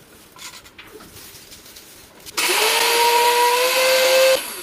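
Silver Crest 2-in-1 blender grinder's motor running in a short burst of about two seconds: its whine rises quickly as it spins up, holds steady, then cuts off suddenly. Light clicks and knocks of handling come before it.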